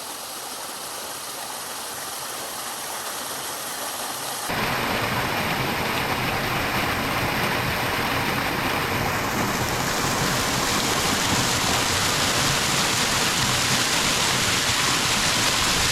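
Steady rush of falling water from a waterfall. About four and a half seconds in it suddenly jumps louder and fuller, and it grows brighter later on.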